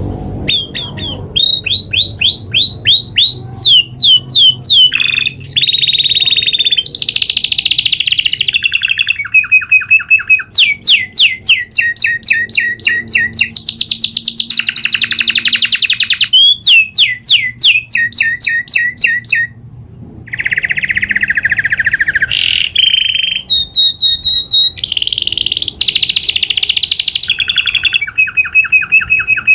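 Domestic canary singing a long rolling song: phrase after phrase of fast repeated notes and trills, jumping between pitches, with only a brief break a little over two-thirds of the way through.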